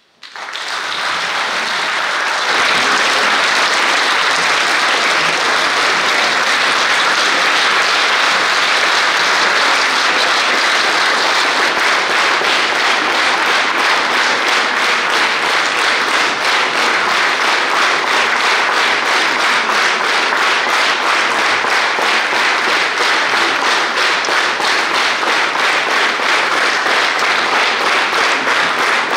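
Concert audience applauding as an orchestral piece ends, the clapping swelling over the first couple of seconds and then staying loud and steady; toward the end it settles into a rhythmic beat of clapping in unison.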